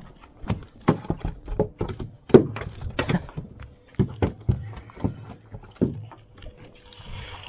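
Irregular knocks and thumps against a fiberglass boat deck, a dozen or so uneven hits, some sharp and loud.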